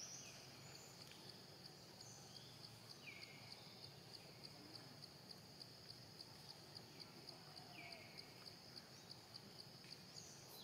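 Faint outdoor ambience: a steady high insect trill that pulses about three times a second, with a few short, high, falling chirps now and then.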